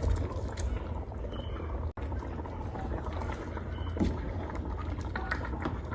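Pot of soup simmering on the stove over a steady low rumble, with a few faint knocks.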